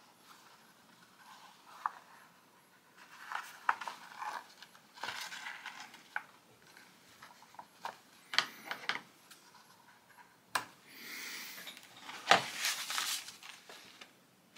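Intermittent paper rustling and handling noises from a hand-sewn paper notebook on a cutting mat, with a few sharp clicks and taps scattered through, the loudest near the end.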